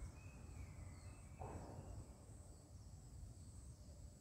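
Quiet garden ambience: a steady high-pitched insect drone, with a few faint bird chirps in the first second and a half and a brief soft rustle about a second and a half in.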